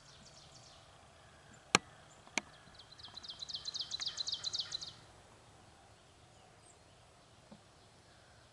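Two sharp clicks close to the microphone, less than a second apart, then a small songbird singing a fast trill of repeated down-slurred high notes for about two seconds.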